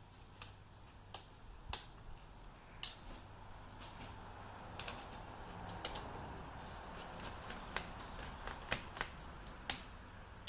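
Screwdriver taking out the small screws that hold a laptop hard drive: scattered sharp clicks and taps, about a dozen, with a faint scraping stretch in the middle.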